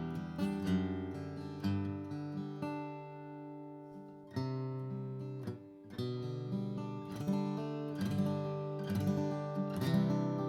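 Atkin The Nineteen (J19) acoustic guitar, with mahogany back and sides and a baked Sitka spruce top, strung with phosphor bronze light strings and strummed with a pick. Full chords are struck every second or two and left to ring out and fade.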